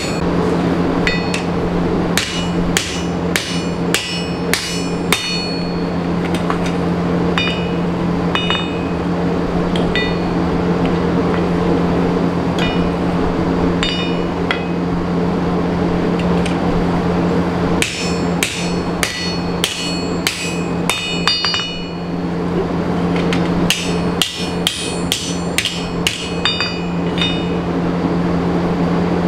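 Hand hammer striking a red-hot steel plate on an anvil in runs of quick blows, each with a short metallic ring, forging the plate flat; the runs are separated by pauses. A steady low drone from the running forge sits underneath.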